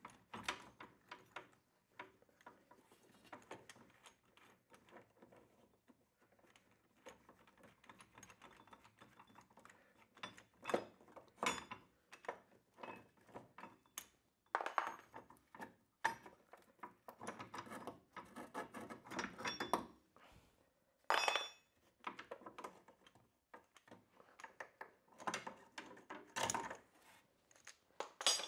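Irregular metal clinks, knocks and scrapes of hand tools and an internal coil-spring compressor being worked in and around a car's rear coil spring, with a handful of sharper knocks scattered through.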